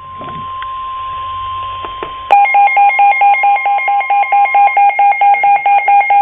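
NOAA Weather Radio warning alarm: a steady tone near 1050 Hz over radio hiss. About two seconds in, a louder electronic alert begins beeping rapidly and evenly in two pitches, about five beeps a second, together signalling an incoming high wind warning.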